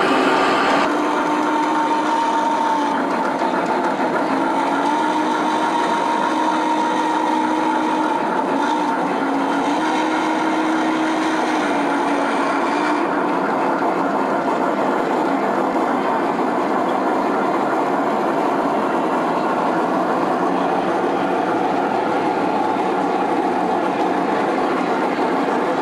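G scale model trains running on the layout: a steady rumble of wheels rolling on track. For about the first half a steady whine shifts slightly in pitch, then fades.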